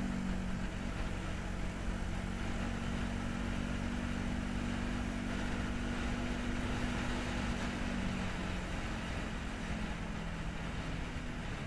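Benelli motorcycle engine running at a steady cruise, with wind and road noise, muffled by the camera's waterproof case. The engine note eases slightly lower after about eight seconds as the bike backs off the throttle.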